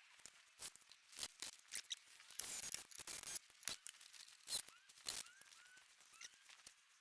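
Irregular sharp clicks and scraping of hand work with tools and deck boards, with a few faint short rising chirps in the second half. No drill motor is running.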